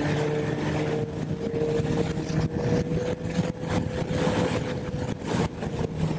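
Honda CB1000R's inline-four engine running while the bike is ridden on the road. Its pitch rises slowly for about five seconds, under a steady rush of wind noise.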